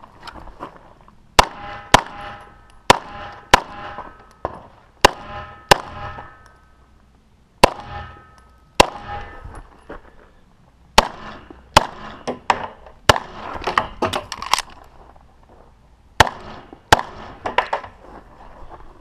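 About twenty 9mm pistol shots from an EAA/Tanfoglio Witness Elite Limited Pro, fired in pairs and quick strings with pauses of a second or two between them. Several of the early shots leave a brief ringing after them.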